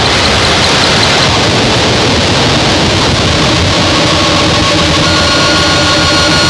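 Harsh noise music: a loud, dense wall of distorted electronic noise from analog synthesizer and fuzz/distortion pedals. About five seconds in, several steady high tones come in over it.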